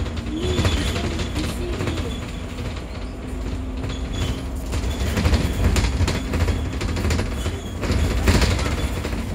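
Double-decker bus in motion, heard from inside on the upper deck: a steady low engine and road rumble with frequent rattles and clatter from the body and fittings.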